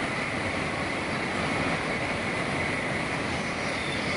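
Tokaido Shinkansen high-speed train passing at speed: a steady rushing noise with a faint high tone running through it.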